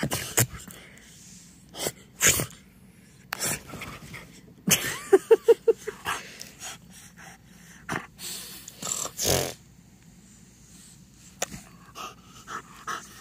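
French bulldog making short, noisy bursts of breath and snorts while playing on a blanket. About five seconds in there is a quick run of five or six short pitched sounds.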